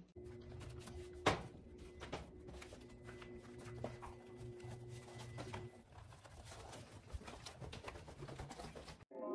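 Faint handling noise: rustling and scattered small clicks as a sneaker is pulled on by hand, over a faint steady hum. It cuts off abruptly near the end as piano music begins.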